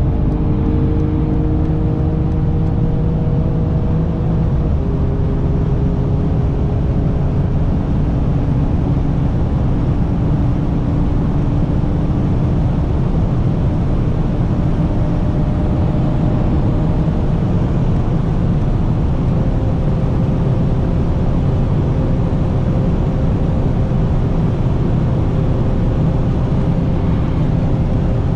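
Cabin noise of a Mercedes-AMG CLS 53's 3.0-litre inline-six at steady Autobahn cruising speed: a loud, even low road and wind drone with a faint engine hum that shifts pitch slightly a few times. The interior noise is very loud, which the driver thinks comes from poor sealing on the car's right side.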